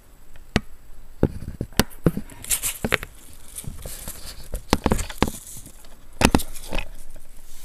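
Irregular scratches, taps and clicks from a Pyrex dish and cardboard being handled up close, with a giant centipede trapped inside.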